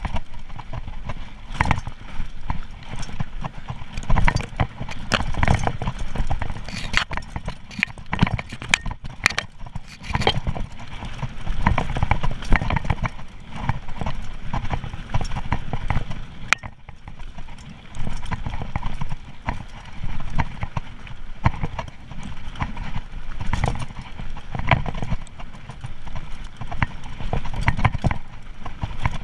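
Mountain bike rattling and knocking over a rough gravel trail at speed, tyres crunching on stones, with a low rumble underneath throughout.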